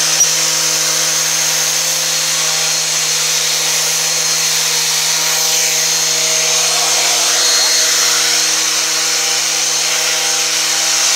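Electric sheet sander running steadily, its pad rubbing over dried cement wall putty on a wall: a constant motor hum under a scraping hiss.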